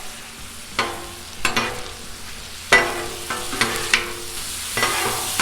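Ground beef and seasoning liquid sizzling on a Blackstone flat-top griddle, with about five sharp scraping and clanking strokes of stirring on the steel surface, a few with a brief metallic ring.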